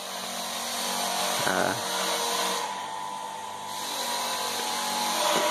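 Small air compressor's motor running steadily: an even hum with a hiss over it. A brief voice is heard about one and a half seconds in.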